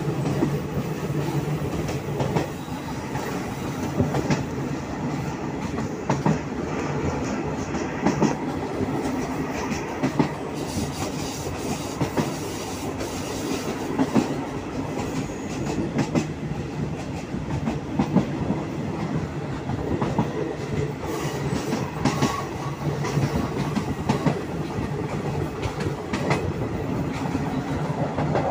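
Thai rapid train 102's passenger carriage running along the track, heard at an open carriage window: a steady rumble with the wheels clicking and knocking over rail joints every second or two.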